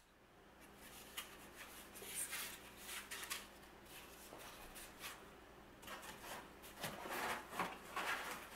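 Corrugated cardboard scraping and rustling as pieces are slid and pressed into slots in a cardboard assembly, with several short scuffs, the loudest cluster near the end.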